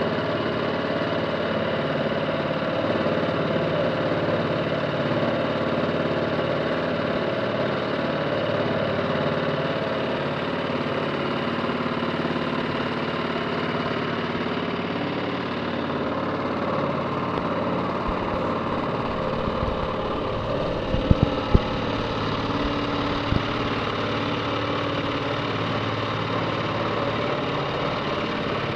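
A boat's engine running steadily as the boat moves along, with a few short low thumps about two-thirds of the way through.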